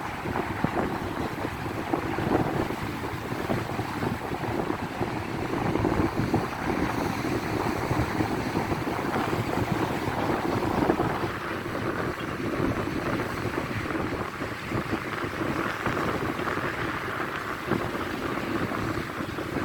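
Wind buffeting the microphone, with the steady rush of sea waves beneath it.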